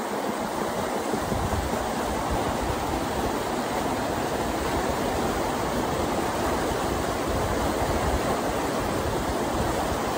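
Fast, shallow mountain stream rushing over rocks in a steady, unbroken wash of water noise.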